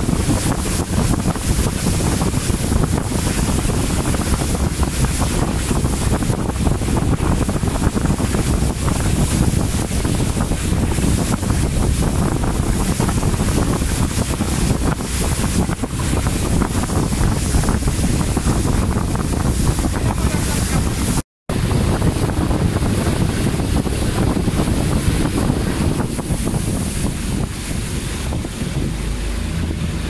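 Heavy wind buffeting the microphone of a small boat under way, over the rush and splash of water along the hull. The sound cuts out for a moment about two-thirds of the way through.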